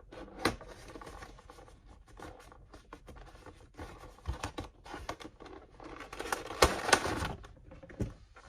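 Funko Pop box being opened by hand: cardboard and plastic packaging rustling and scraping, with scattered clicks and scratches, busiest and loudest about six to seven seconds in.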